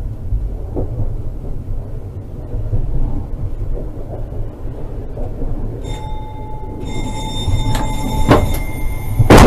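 Tram running along its rails with a steady low rumble. About six seconds in, a steady high whine of several tones sets in, with a few sharp clicks after it. Near the end comes a loud bang, the loudest sound here.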